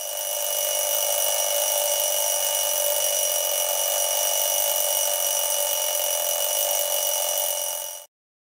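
A steady, even hiss with a faint high whine in it, holding one level for about eight seconds and then cutting off suddenly.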